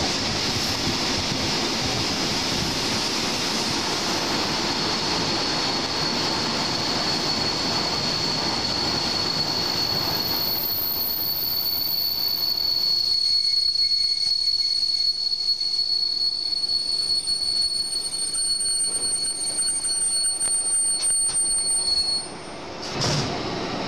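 Passenger train rolling slowly through a station, heard from an open coach window: steady rumble of wheels on rails with a high, steady wheel squeal that grows stronger about halfway through. The squeal cuts off near the end as the train comes to a halt.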